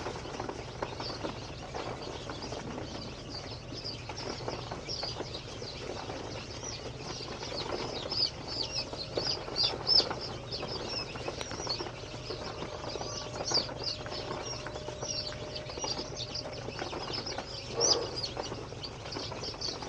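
Many young chicks peeping at once: a dense, continuous chorus of short, high chirps over a steady rustling, with a few louder moments partway through.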